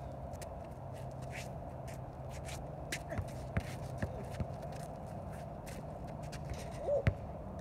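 Basketball dribbled on an asphalt driveway, a few sharp bounces from about three seconds in, with scuffing sneaker footsteps, and one louder sharp bang near the end.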